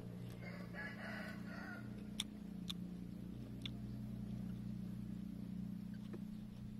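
A rooster crows once, lasting about a second and a half, near the start over a steady low hum. A few light clicks follow, from a metal spoon against the plate.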